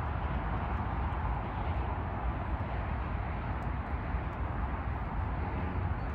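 Steady outdoor background rumble, heaviest in the low end, with no distinct events.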